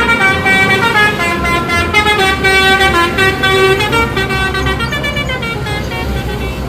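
Bus 'telolet' multi-tone horn playing a quick melody of stepped notes over the bus's engine running. The tune fades out about five seconds in.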